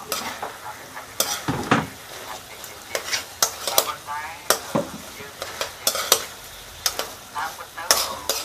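Metal spatula stirring and scraping in a hot pan over sizzling frying food, with sharp scrapes and knocks against the pan every half second or so and a short squeak of metal on metal now and then.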